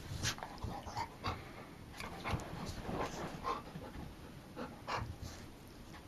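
A dog panting and snuffling in short, irregular puffs as it pushes its nose under the edge of a couch.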